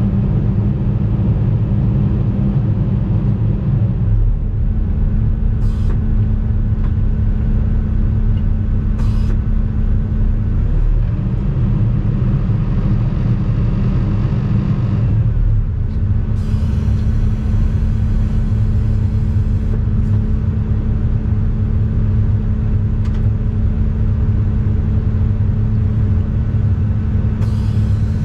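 Excavator's diesel engine running steadily, heard from inside the cab, its note dipping and recovering about three times as the hydraulics take load.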